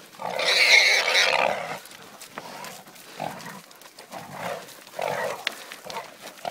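A white wild boar, held by catch dogs, squealing loudly for about a second and a half near the start. It follows with shorter, fainter squeals and grunts about once a second.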